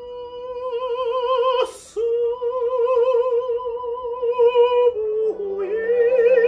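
A man singing in a high, operatic register, holding long notes with wide vibrato. There is a short breath just under two seconds in, and the line dips lower about five seconds in before climbing back. A yangqin (Chinese hammered dulcimer) is played faintly underneath.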